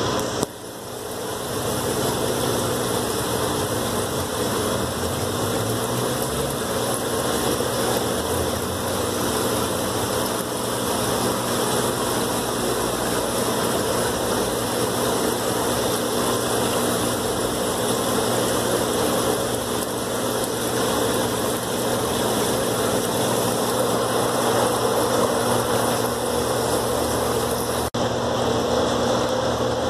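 Steady hum of aquarium equipment, a low buzzing drone with an even hiss over it. It drops out briefly about half a second in and again near the end.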